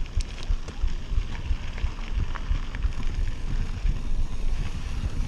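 Mountain bike ridden at speed over a dirt trail: tyres rumbling on the dirt, and the bike rattling with scattered light clicks. Wind buffets the microphone in uneven low gusts.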